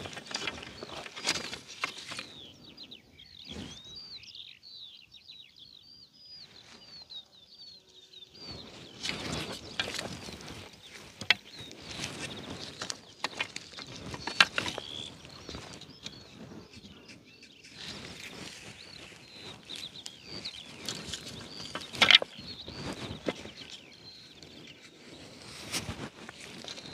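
Plastic-coated steel garden stakes clicking and knocking against each other as they are pulled from a bundle and pushed into hard, wet soil, with a few sharp clacks. Small birds chirp in quick succession a few seconds in.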